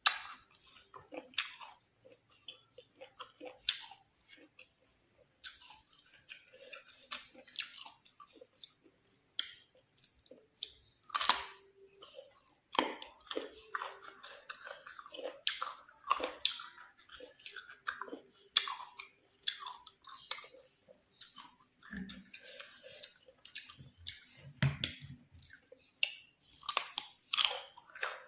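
Close-miked chewing of crisp, unripe green mango: irregular crunches and bites with wet mouth sounds.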